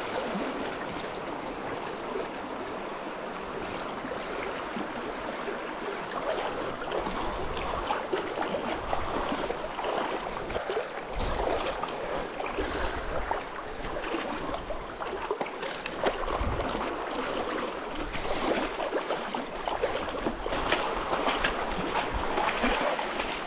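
The silty Paria River flowing fast, running high with spring snowmelt: a steady rush of water. Splashes from wading through it and a few low thumps come through now and then, more often near the end.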